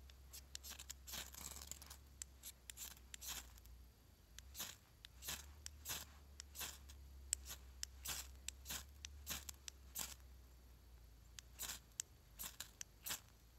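A steel striker scraped along a ferrocerium rod over a fire-starter nugget in many quick, short, irregular strokes, with a longer scratchy stretch about a second in.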